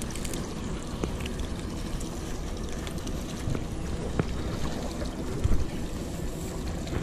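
Small fishing boat at sea: a steady low rumble with water washing against the hull, and a few light knocks on deck, the loudest a dull bump about five and a half seconds in.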